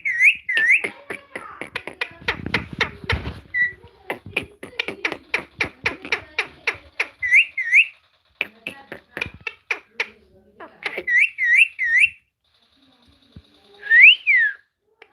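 Parrot whistling short swooping notes in twos and threes, with a fast run of sharp clicks, about four a second, through the first half or so. A louder whistle that rises and falls comes near the end.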